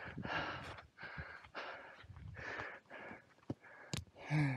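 A person breathing hard through the mouth, quick noisy breaths about two a second, as after a hard climb. Two sharp clicks come near the end.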